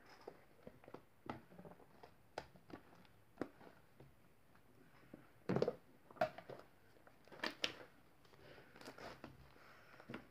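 Green slime being squeezed and poked by hand, giving faint, irregular sticky clicks and pops, with the loudest squelch about five and a half seconds in.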